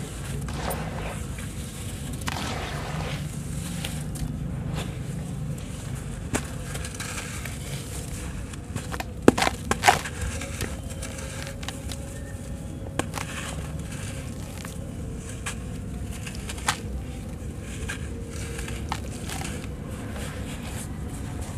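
Dried sand-cement lumps crumbled and crushed by hand, with gritty crunching and grains pattering down into a wet basin. A few sharp cracks come about nine to ten seconds in, the loudest moments, with scattered smaller clicks around them.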